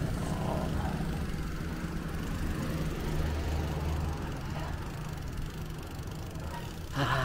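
A motor vehicle engine running with a low, steady hum that slowly fades, and a brief louder sound near the end.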